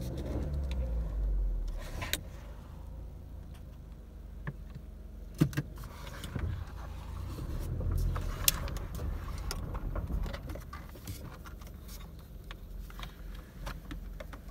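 Car driving slowly over a bumpy dirt road, heard from inside the cabin: a low rumble with scattered rattles and clicks as it jolts over the ruts, a sharper knock about five and a half seconds in.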